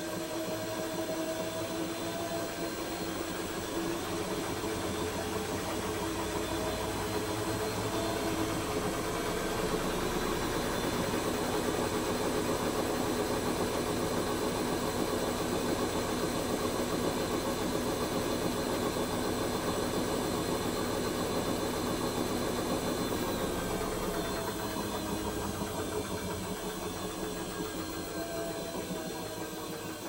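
Hoover H-wash 300 Plus washing machine's inverter motor turning the drum: a motor whine that rises in pitch over the first few seconds, holds steady, then falls away over the last several seconds as the drum slows.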